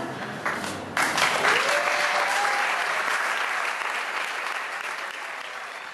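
Audience clapping. It breaks out suddenly about a second in and slowly dies down.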